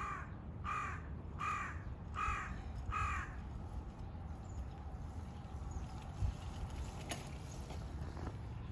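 A crow cawing five times in a steady series, about one caw every three-quarters of a second. A short low thump follows about six seconds in.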